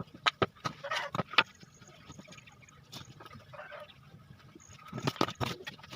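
Sharp knocks of hand tools striking timber, in irregular clusters: several in the first second and a half, one near the middle and a loud group near the end.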